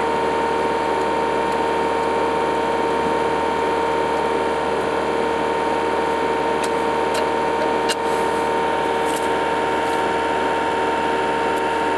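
Hydraulically driven netting-winding attachment running steadily: a constant whine with a fast mechanical rattle.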